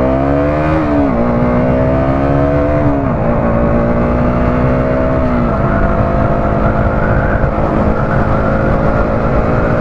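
KTM Duke 200 motorcycle's single-cylinder engine accelerating through the gears. The pitch climbs and then drops at each upshift, about a second, three seconds and five and a half seconds in, then holds steady at speed. Steady wind noise on the helmet microphone lies under it.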